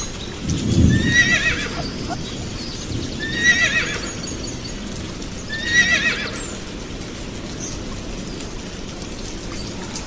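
Horse whinnying three times, each a wavering high neigh about a second long, the first with a low rumble under it, over a steady hiss.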